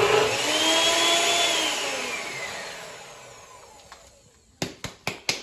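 NutriBullet blender motor grinding Hot Cheetos; its whine rises briefly, then winds down and fades over about three seconds. Near the end come a few sharp knocks as the cup is lifted off the base and handled.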